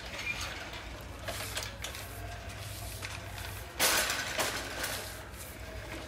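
Faint rattling and clicking of a wire birdcage being handled and moved, with a brief louder scrape about four seconds in.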